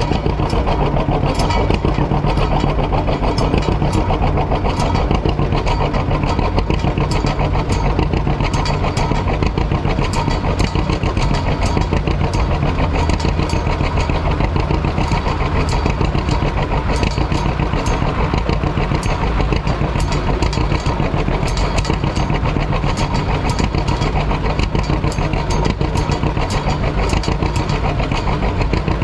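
Heavy diesel engine running steadily close by, at an even speed with no revving, and frequent sharp clicks over it.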